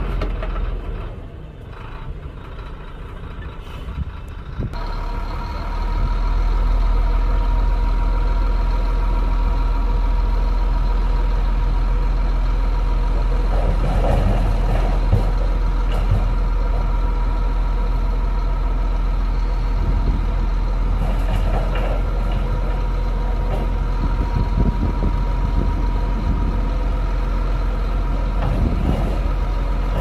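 Heavy diesel engine of earthmoving machinery running steadily, growing louder about five seconds in, with rattling and clanking now and then.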